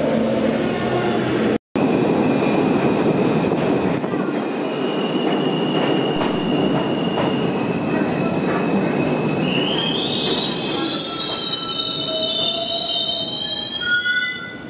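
A New York City subway train rolls into the station with a loud, steady rumble and rattle, which cuts out for an instant near the start. From about ten seconds in, several high squeals rise in pitch and then hold as the train brakes to a stop.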